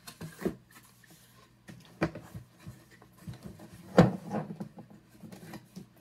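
Cardboard box being handled and set down: rubbing and scraping with a few short knocks, the loudest about four seconds in.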